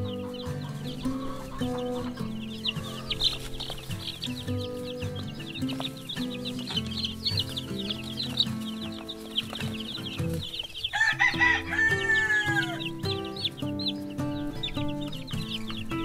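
A brood of young chicks peeping constantly, a dense stream of short high cheeps. About eleven seconds in comes one louder, drawn-out bird call that falls in pitch. Background music with held notes plays underneath.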